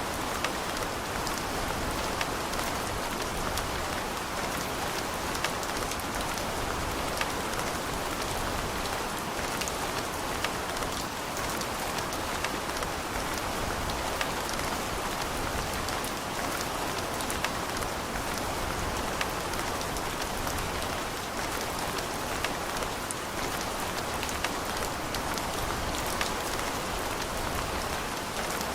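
Steady rain falling, an even hiss with scattered drop ticks against a hard surface.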